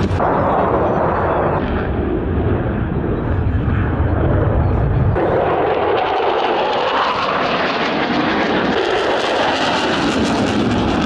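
Jet noise from a USAF F-16 Fighting Falcon's single turbofan engine during a flying display, a loud continuous noise that shifts abruptly about five and nine seconds in. Near the end the afterburner is lit.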